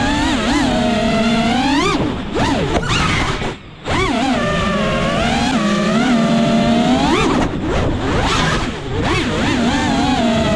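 FPV quadcopter's brushless motors whining, the pitch swooping up and down sharply as the throttle is punched and eased. The throttle is chopped briefly about three and a half seconds in, where the sound drops almost away, and the sound dips again near eight seconds.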